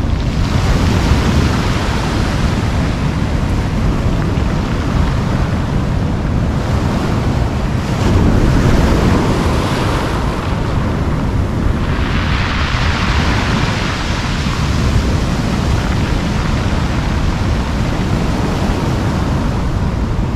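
Ocean surf breaking and washing up over a pebble beach, with wind buffeting the microphone. A louder hissing wash of a wave comes past the middle.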